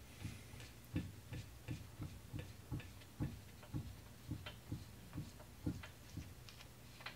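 Hand grease gun clicking in a steady rhythm, about two to three strokes a second, as it pumps electric motor grease into the grinder-polisher motor's bearing.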